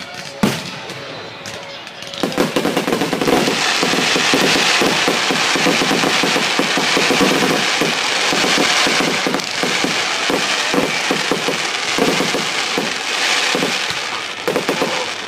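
Fireworks: one sharp bang, then from about two seconds in a long, dense run of rapid crackling pops, like a string of firecrackers going off.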